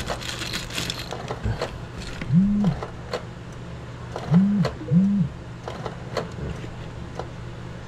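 Canon G1010 inkjet printer working through a deep cleaning cycle: three short motor whirs that rise and fall in pitch, one about two and a half seconds in and two close together just before the five-second mark, over a low hum and light clicks of the mechanism.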